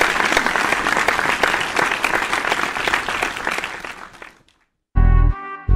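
Applause that fades out about four seconds in. After a brief silence, an R&B backing track with heavy bass notes starts near the end.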